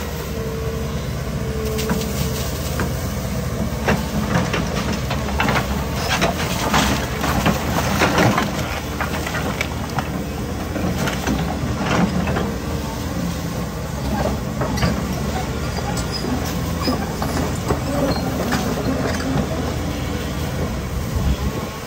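Hydraulic excavator's diesel engine running steadily while its bucket breaks up a building. Repeated cracks and crashes of splintering timber and falling roof tiles come thickest and loudest about a third of the way in.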